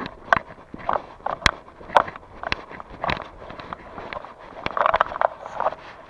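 A person's footsteps walking at a steady pace, about two steps a second, each a short sharp scuff on the ground.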